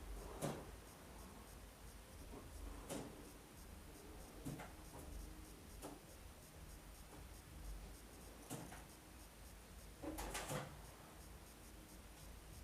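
Faint scattered clicks and scrapes from hands working on a lawnmower: about six short sounds, the loudest about half a second in and a short cluster around ten seconds in.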